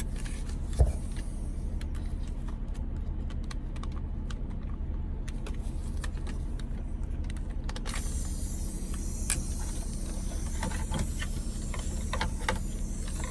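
Steady low hum of a car engine idling, with small clicks and knocks of hands working small rubber vacuum lines off a MAP sensor and one louder knock about a second in. A hiss comes in about two-thirds of the way through.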